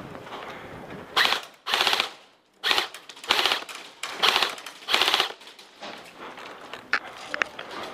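Airsoft electric guns firing full-auto: about six short bursts of rapid shots in quick succession between about one and five and a half seconds in.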